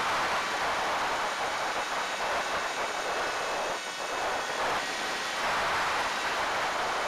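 Wind rushing over the onboard camera of a ZOHD Drift FPV foam glider flying fast and low: a steady hiss that dips briefly about four seconds in as the plane banks.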